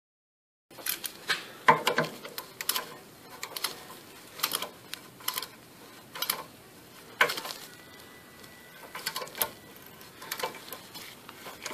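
Hand tap in a tap holder turned by hand to cut M8×1.25 threads for a Heli-Coil insert in a drilled-out bolt hole: irregular metallic clicks and creaks, a few each second, starting a little under a second in.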